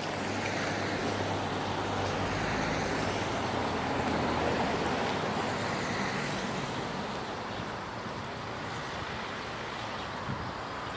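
A motor vehicle passing on the road: engine hum and tyre noise that build up, peak about four seconds in, then fade away.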